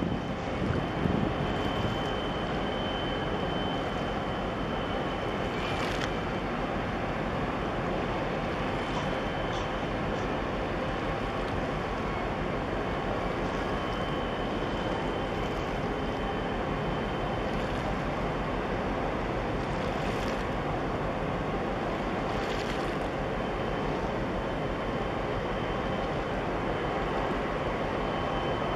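Steady engine drone of a boat underway, with water rushing and wind on the microphone.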